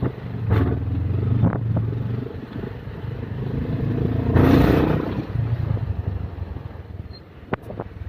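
Motorcycle engine running steadily, with a loud rush of noise about halfway through that briefly swells the level.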